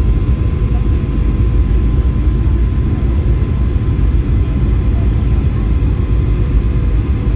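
Cabin noise inside a Boeing 737-800 on its descent to land: a steady low roar of airflow and its CFM56-7B turbofan engines, with a thin steady whine above it.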